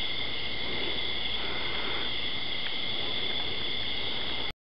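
Steady night chorus of crickets chirring, a continuous high trill over a hiss, cut off abruptly about four and a half seconds in.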